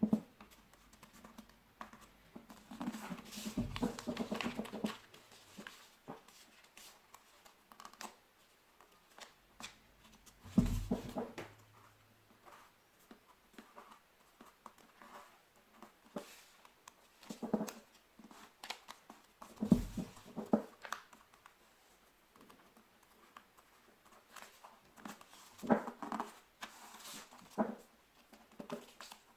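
Paper being folded and creased by hand on a tabletop: crinkling and rustling with scattered clicks, and three dull thumps on the table.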